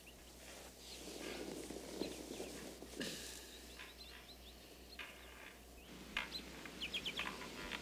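Soft rustling of satin bedsheets as a man sits up in bed, then small birds chirping, with many short calls in quick succession near the end.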